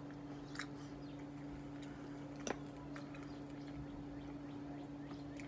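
Faint chewing and mouth sounds of a person eating soft food, with a few small clicks, the sharpest about two and a half seconds in, over a steady low electrical hum.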